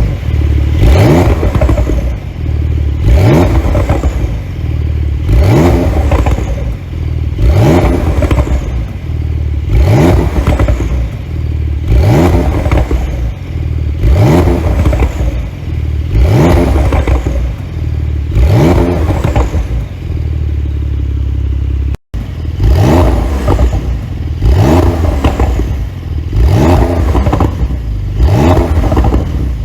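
Porsche 911 Carrera GTS twin-turbo flat-six free-revving in repeated blips about every two seconds, each rev rising and falling, with popping and crackling from the exhaust as the revs drop, typical of an ECU pop tune with the exhaust flaps held fully open. The sound drops out for an instant about two-thirds of the way through.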